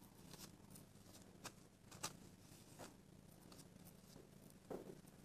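Near silence, with a few faint soft taps and rustles as a glue brush dabs a paper napkin down onto a wooden tray for decoupage.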